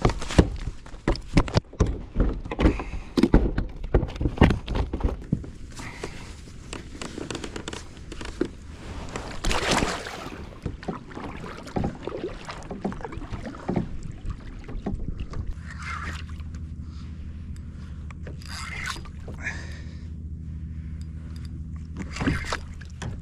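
Knocks and water sounds on a fishing kayak, many sharp knocks in the first few seconds, then from about two-thirds in a steady low hum underneath.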